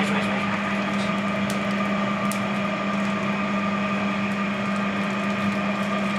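Quick-light shisha charcoal being lit with a jet-flame lighter, giving a few sharp crackles. These sit over a steady low hum and hiss that runs on unchanged.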